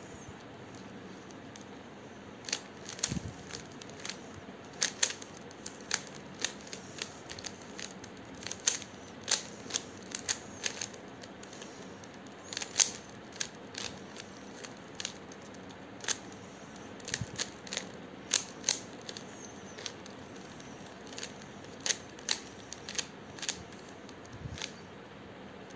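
3x3 puzzle cube being turned by hand: its layers clack round in quick, irregular clicks that come in runs with short pauses, starting about two seconds in.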